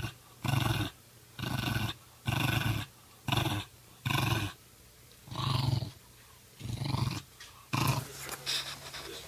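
An animal growling in eight short, evenly spaced bursts, about one a second, with fainter scattered sounds after the last one.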